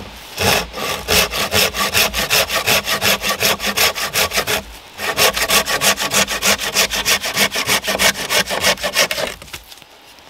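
Hand saw cutting through a dry, dead oak branch in quick, even back-and-forth strokes, in two runs with a short pause about halfway.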